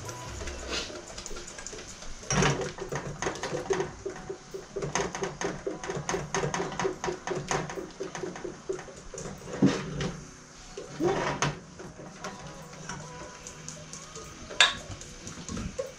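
A whisk beating egg-yolk sauce in a stainless steel mixing bowl, a fast steady run of strokes against the metal at about four a second. It is followed by a few louder clanks of the metal bowl against the pot of the double boiler.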